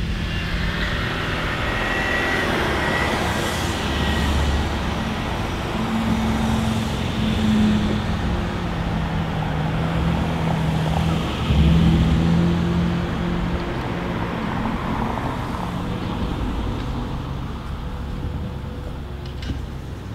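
Range Rover Sport engine working under load as the SUV crawls up a dry dirt hill in low range (4LOW), a steady low engine note that swells a couple of times, loudest about 11 to 12 seconds in.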